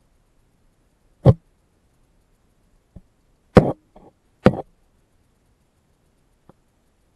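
Sharp knocks and taps picked up through a submerged camera: three loud ones, the last two about a second apart, with a few fainter taps between, and nothing else heard.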